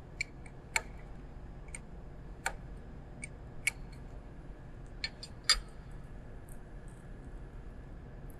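Wrenches clicking and clinking against the metal high-pressure fittings as a gland nut on a waterjet high-pressure line is loosened: scattered, irregular sharp clicks, the loudest about five and a half seconds in.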